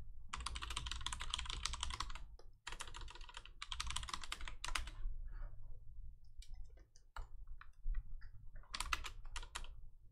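Typing on a computer keyboard in quick runs of keystrokes. Runs fill most of the first five seconds, scattered single keystrokes follow, and another short run comes near the end.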